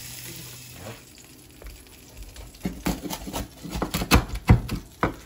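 Knife cutting through grilled, crusty arais on a wooden cutting board: a quick run of crunches and knocks in the second half.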